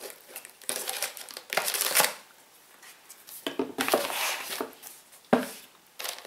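Paper and plastic packaging rustling and crinkling as a beauty box is unpacked by hand, in two longer stretches about a second in and about three and a half seconds in, with a sharp knock a little after five seconds.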